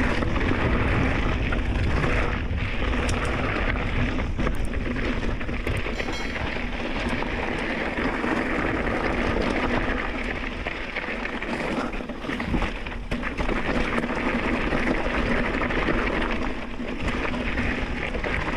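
Mountain bike rolling fast down a rocky, loose dirt trail: a steady rush of tyres on dirt and stones, with rumbling wind on the chest-mounted microphone and scattered short knocks and rattles from the bike over rocks.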